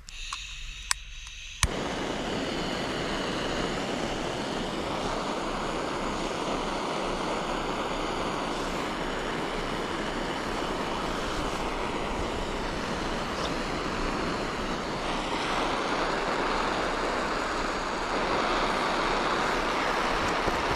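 A steady rushing noise that starts suddenly about a second and a half in and grows slightly louder and brighter later on.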